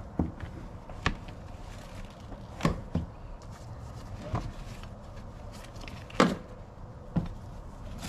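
Irregular knocks and clunks from hands working on a car's rear seat and its frame, about seven sharp ones with the loudest a little after six seconds in, over a low steady hum.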